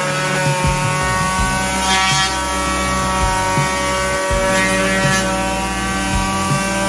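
Dexter electric palm sander running steadily as it sands a varnished wooden cabinet door, a continuous motor whine with the rasp of the sanding pad on the wood.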